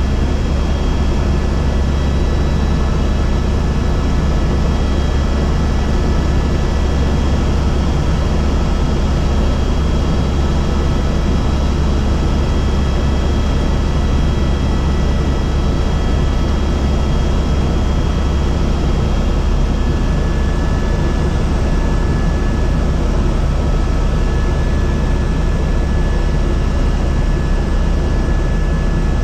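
Helicopter in flight: a loud, steady drone of engine and rotor with a heavy low rumble and a few faint steady whining tones over it.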